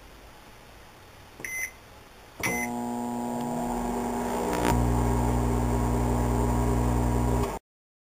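Microwave oven keypad beeping twice, then the oven starting up and running with a steady hum. The hum gets louder a couple of seconds after start and runs for about five seconds before it cuts off abruptly.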